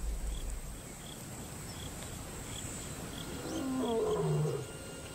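A distant male lion roaring, its territorial roar announcing ownership of the pride. The loudest call comes about four seconds in, over a faint high chirping repeated about three times a second.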